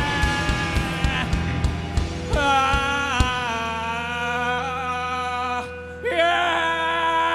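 Live rock band playing an instrumental passage: drums under sustained chords for about three seconds, then the drums drop out while held notes ring on, bending in pitch, with a brief dip in level near the end.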